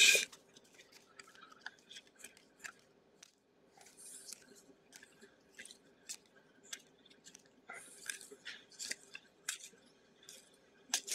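Trading cards being handled at close range: a scattered string of small clicks and brief swishes as cards slide and are flipped over a faint steady hum.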